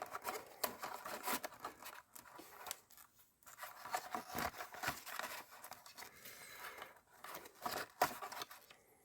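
Packaging being rummaged through by hand: irregular rustling, rubbing and small clicks and knocks of cardboard and plastic as the box contents are taken out.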